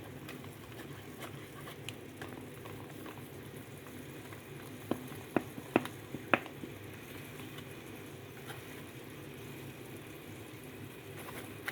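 Chicken curry masala sizzling and bubbling in the pan, a steady frying noise, with four sharp clicks about five to six and a half seconds in.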